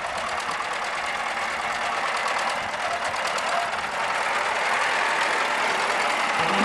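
Tractor engine running steadily with a fast, even knock, slowly growing louder.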